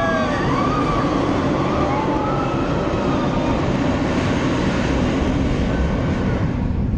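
Big Thunder Mountain runaway mine-train roller coaster running along its track with a steady loud rumble, and a few brief sliding high squeals over it.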